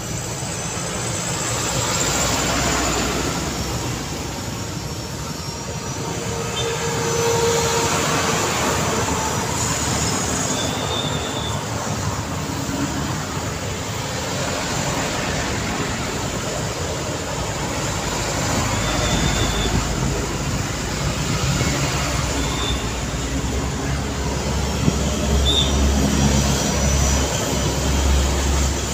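Street traffic dominated by a Hino diesel cargo truck driving slowly past, its engine a low rumble that grows stronger in the second half, with motorbike and car engines around it.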